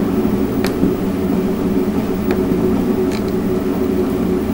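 A 3D printer running mid-print, its motors and fans making a steady mechanical hum, with a few faint clicks as the LCD controller's rotary knob is pressed and turned.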